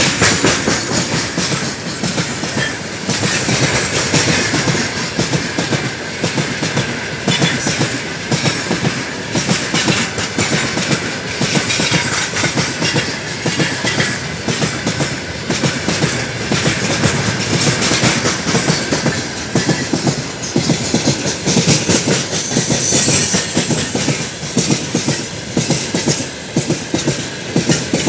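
Freight train of loaded open-top gondola wagons rolling past close by: continuous rumble of wheels on rail with rapid clickety-clack as the wheelsets cross the rail joints.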